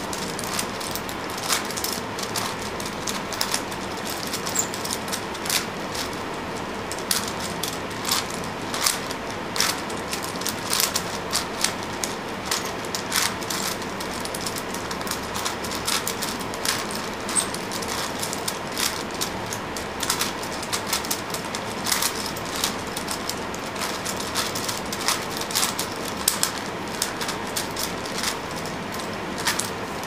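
5x5 Rubik's cube being turned rapidly by hand: a quick, irregular run of plastic clicks and clacks from the layers, several a second.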